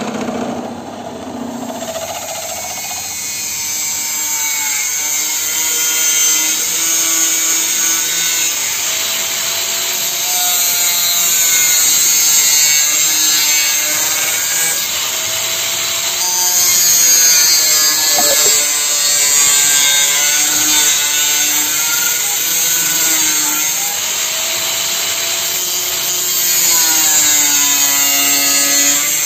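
A handheld angle grinder with an abrasive cut-off disc cutting a metal plate. It gives a loud, harsh grinding hiss, and its motor whine dips and recovers over and over as the disc bites into the metal. At the very start a bench drill press is drilling metal.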